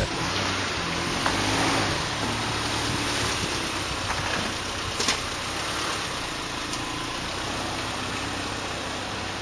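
Subaru Impreza wagon reversing and braking, its flat-four engine running low and steady, with a brief sharp click about five seconds in.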